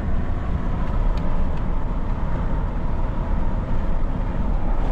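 Steady engine and road rumble of a pickup truck driving at speed.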